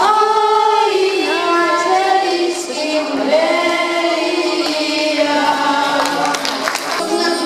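A small group of children singing a song together into microphones, with acoustic guitar accompaniment.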